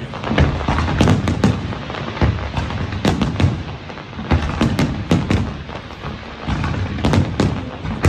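Fireworks display: a barrage of aerial shells and comets bursting, with many sharp bangs in quick, irregular succession, several a second.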